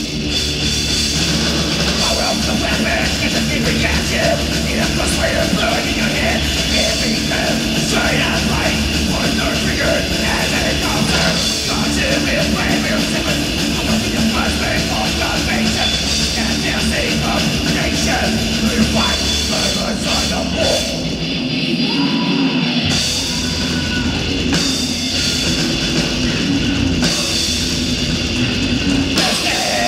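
Heavy metal band playing live: distorted guitars, bass and drum kit, picked up by the camera's own microphone rather than the mixing desk. A little over two-thirds of the way through, the deep bass drops out for about two seconds, then comes back in.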